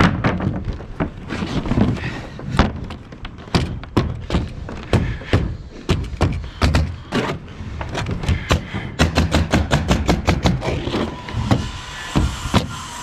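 Bostitch pneumatic nailer shooting nails through OSB sheathing into the roof trusses: separate sharp shots, then a quick run of several shots a second about nine seconds in as a seam is nailed off.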